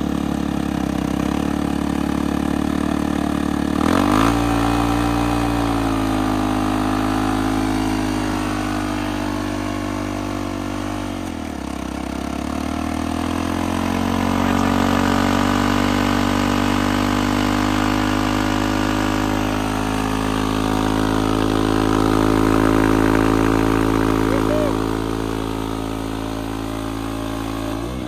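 Dirt bike engine held at high revs while its spinning rear wheel drives an ATV's rear tire into a smoking burnout. The revs jump about four seconds in, sag briefly in the middle, then climb again and hold before dropping near the end.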